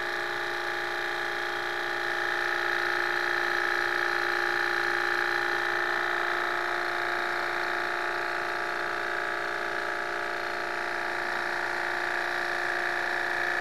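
Model Stirling engine running at speed, its crank and linkages giving a steady whir of unchanging pitch that grows slightly louder about two seconds in.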